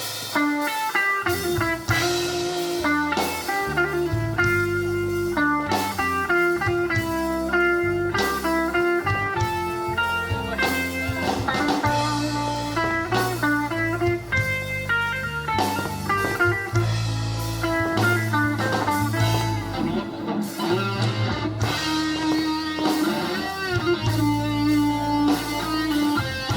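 Live band playing an instrumental passage: an electric guitar picks a lead melody of single notes over bass guitar and drum kit.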